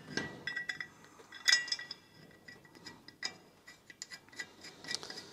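Light metallic clinks and ticks as a cross-drilled brake rotor is handled on the hub and a bolt is threaded in by hand, a few clinks ringing briefly; the loudest comes about a second and a half in.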